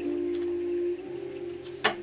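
Background music of sustained, held tones that shift to a new chord about a second in, with a single sharp tap near the end.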